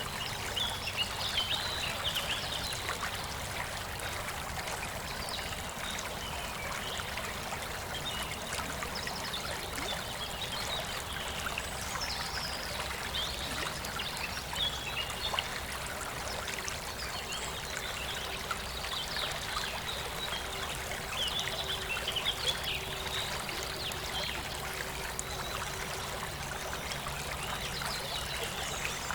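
A river flowing steadily, with a European robin singing short, high warbling phrases every few seconds over it. A campfire crackles with scattered small pops.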